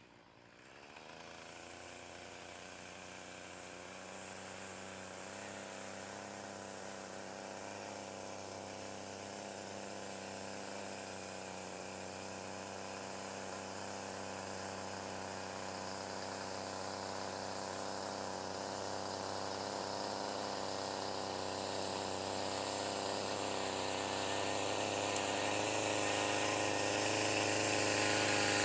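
Gas weedwacker (string trimmer) engine running steadily, growing gradually louder as it comes closer.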